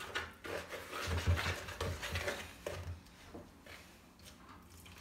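Batter being stirred by hand in a plastic mixing bowl: soft, irregular scraping and tapping of the utensil against the bowl, with a few low thuds in the first two seconds, growing quieter after about three seconds.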